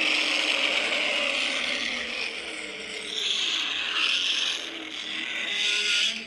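A custom-made Godzilla roar in the style of the Heisei-era films: one long, harsh screech that eases a little about halfway through, swells again and then cuts off near the end.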